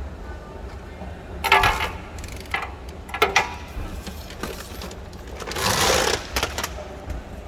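Escalator step panels being handled and fitted: a few sharp knocks and clicks in the first half, then a longer scraping rub a little before the end, over a steady low hum.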